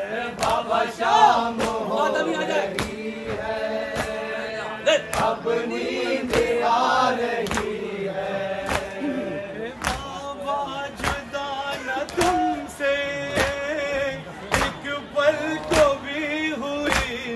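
A group of men chanting a noha (Muharram lament) in unison, their voices rising and falling. Sharp strikes keep an even beat just under twice a second.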